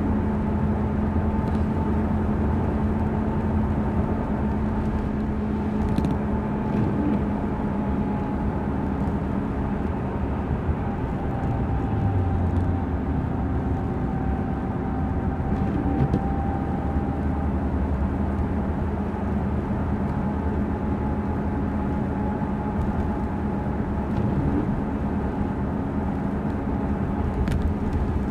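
Steady cab noise of a 2005 Ford Explorer Sport Trac driving at highway speed on a rain-wet road: its 4.0-litre V6 engine and tyres make a continuous hum with a low, even drone.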